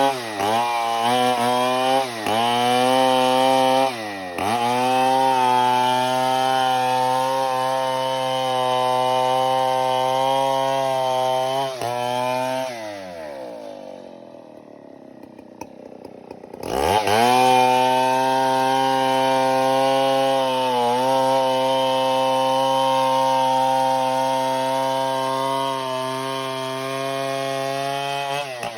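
Stihl MS 070 two-stroke chainsaw running at high revs, with its pitch dipping briefly a few times in the first few seconds. About twelve seconds in the revs fall away to a faint idle for about four seconds, then the saw revs sharply back up and holds steady until it drops off at the end.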